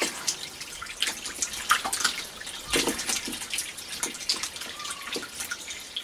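Irregular small splashes and drips of water in a shallow tank of catfish. The fish thrash at the surface during a water change.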